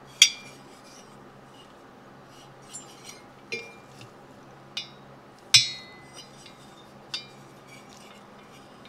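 Aluminium two-stroke motorcycle cylinder being handled and turned over on a workbench, giving a handful of light metallic clinks and taps. The loudest comes just after the start and another about five and a half seconds in, which rings briefly. A low steady hum runs underneath.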